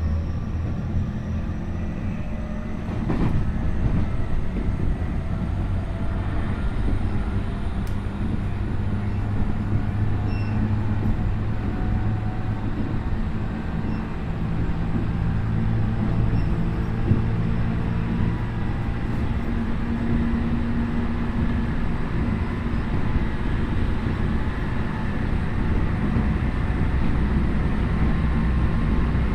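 Tokyu 5050 series commuter train running, heard from inside the car at the car end: a steady low rumble of wheels on rail with a few light clicks. Over it is a faint whine from the Hitachi IGBT inverter and traction motors that slowly rises in pitch.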